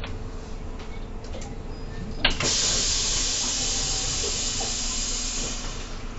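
Compressed-air hiss from the Irisbus Crossway LE 12M bus's pneumatic system: a sharp click about two seconds in, then a loud hiss lasting about three seconds that fades near the end, over the steady low rumble of the bus.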